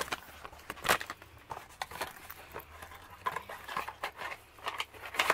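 Product boxes and a bottle handled and set down on a wooden desk: scattered light knocks and packaging rustles, with one sharper knock about a second in.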